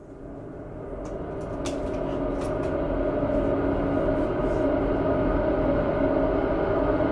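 A steady mechanical hum at a fixed pitch, growing louder over the first few seconds and then holding level.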